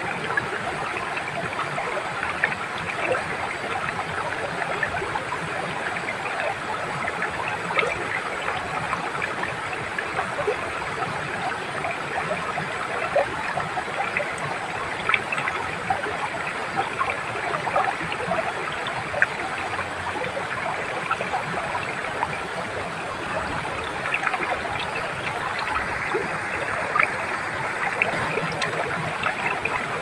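Small waterfall splashing into a rocky pool and a shallow stream running over stones: a steady rush of water flecked with many small splashes.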